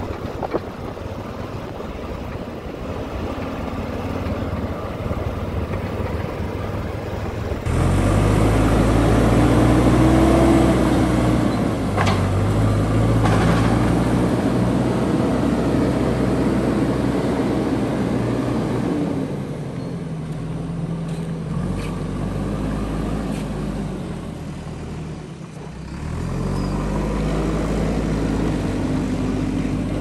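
JCB backhoe loader's diesel engine running as the machine drives over a rough dirt road, its note rising and falling with the throttle. It gets louder about a quarter of the way in, eases off briefly shortly before the end, then revs up again.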